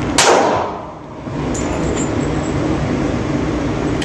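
A single shot from a Glock 20 10mm pistol: one sharp crack that rings off over most of a second, followed by a steady low rumble.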